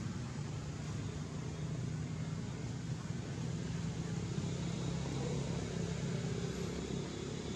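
A steady low hum under an even hiss. A faint thin high whine joins about halfway through.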